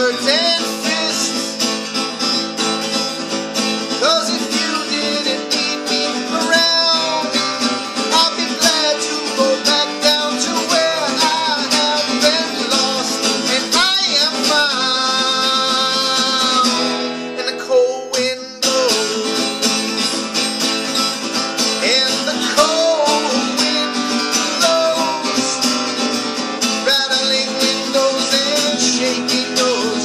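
Acoustic guitar strummed in a slow folk song, with a man singing over it.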